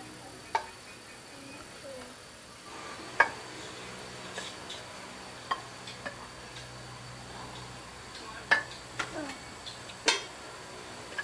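Chopsticks and spoons clicking against rice bowls at a meal, in scattered sharp clicks a second or two apart. Faint insect chirring runs steadily behind them.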